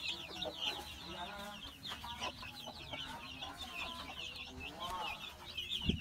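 A brood of chicks peeping continuously in high, rapid chirps while they feed, with a hen clucking low among them.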